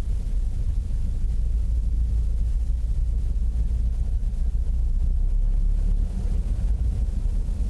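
Light high-wing airplane's piston engine running at low taxi power: a steady low rumble.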